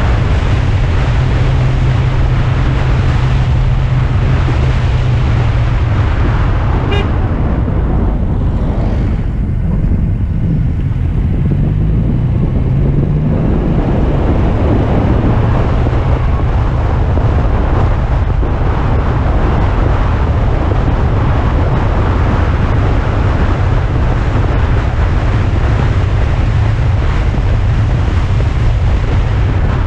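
Alfa Romeo Spider on the move: its engine runs steadily under a continuous rush of wind and road noise. The engine note rises briefly about twelve seconds in.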